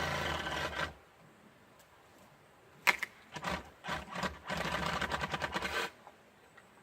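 A saw cutting through fallen apple-tree branches in short stop-start bursts, with a sharp click about three seconds in.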